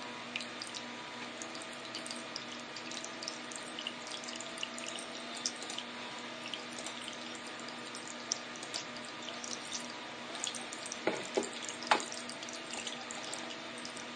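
Water trickling with many small irregular drips and ticks over a steady faint hum. There are a few louder knocks near the end.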